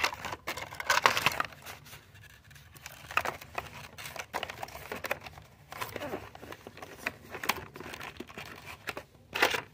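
Plastic packaging crinkling, with small plastic pieces clicking and rattling, as hands rummage through a plastic kit tray in irregular bursts.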